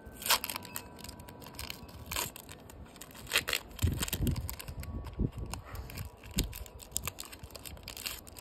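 Pokémon booster pack's foil wrapper being torn open and crinkled as the cards are pulled out: several sharp crackles in the first few seconds, then a few low thumps of handling.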